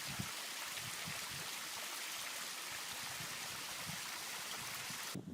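Steady rushing of a stream's running water, an even hiss with no breaks, cutting off abruptly just before the end.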